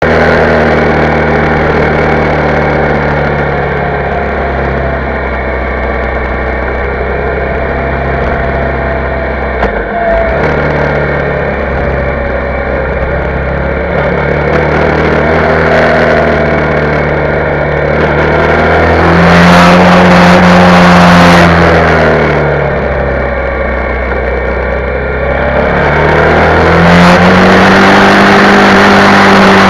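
Motorcycle engine running under way, its pitch climbing and falling as the rider accelerates and eases off through the bends, with a rush of wind over it. The engine is loudest when it revs up about two-thirds of the way in and again near the end.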